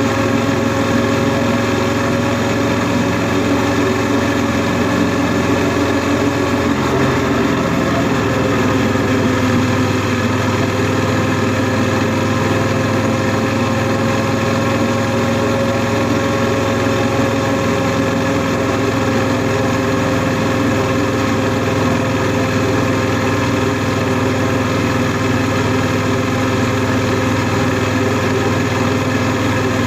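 Honda NC700S's 670 cc parallel-twin engine running steadily under way, its note holding at a nearly constant pitch throughout.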